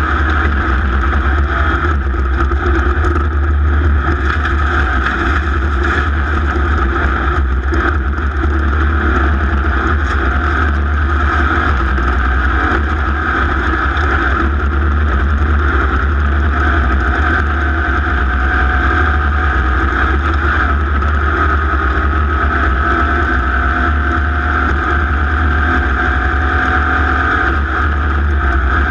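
Racing engine running hard and steady through a lap, its pitch rising and falling a little, over a constant low rumble.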